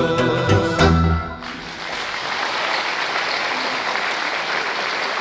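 A Romanian folk band ends its song on a few sharp final chords about a second and a half in, and the audience breaks into steady applause.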